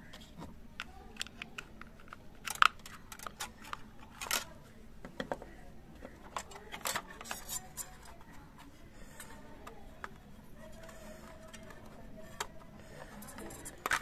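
Clicks and taps of hard plastic being handled: a toy RC car's remote and the car's underside, with a few louder knocks.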